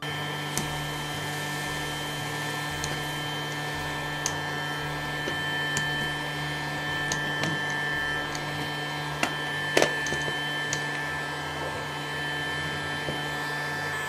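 Casdon Dyson DC22 toy cylinder vacuum cleaner running on batteries in suction mode, a steady whirring hum with a hiss of air. Scattered sharp clicks come as small polystyrene balls are sucked up through the floor head.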